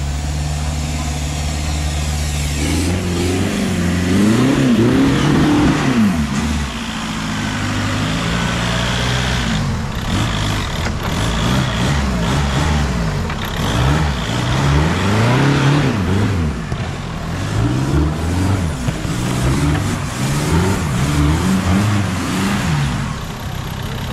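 Engine of a tube-frame off-road trial buggy idling steadily, then about three seconds in revved up and down again and again, its pitch rising and falling every second or two as the buggy works its way over rough, muddy ground.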